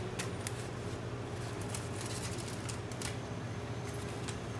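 Knife cutting into crisp fruit held in the hand: a few sharp clicks of the blade near the start, then fainter ones, over a steady low hum.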